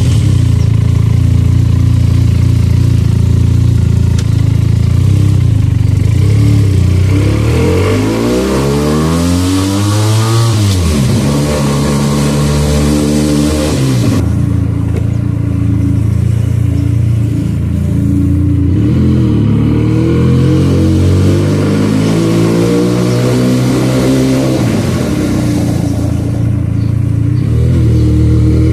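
Benelli 300 motorcycle's parallel-twin engine, idling steadily at first, then pulling away. Its pitch rises steeply for about three seconds from about eight seconds in and falls sharply. After that it rises and falls with the throttle at low riding speed.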